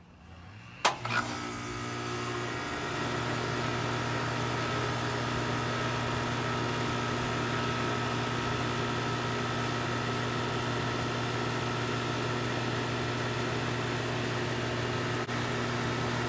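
Central air-conditioning condensing unit starting up: a sharp click about a second in, then a steady low compressor hum and the fan's rush building over the next two seconds and running steadily.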